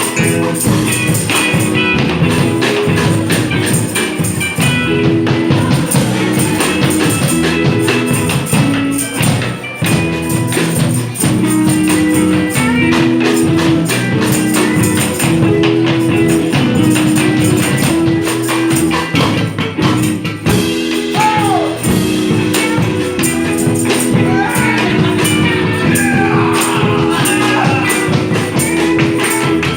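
Band music with a steady beat: a stepping bass line under fast, even percussion strokes.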